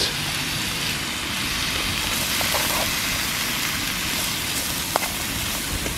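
Steady rushing hiss of a Coleman Fyrepower gas camping stove burning under a pan, with a light click of the fork against the pan about five seconds in.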